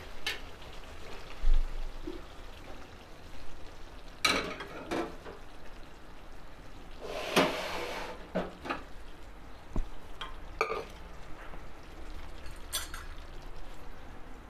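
Kitchen cookware being handled: about ten scattered knocks and clatters of metal pots and utensils, among them a pressure cooker pot being set down on the counter beside the gas stove. A dull thump comes about a second and a half in, and a longer scraping clatter near the middle.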